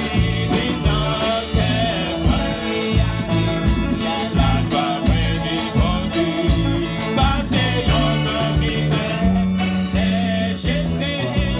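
Women's voices singing a Haitian Creole praise and worship song into microphones over instrumental accompaniment with a steady beat.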